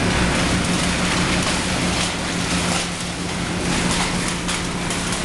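Komatsu BR200T-1 tub grinder running, its Komatsu SA6D125E2-A six-cylinder diesel giving a steady hum under a dense, even rushing noise from the working machine.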